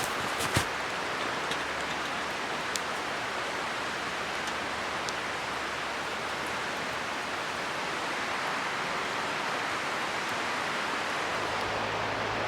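Steady, even rush of water, with a few faint sharp ticks scattered through it.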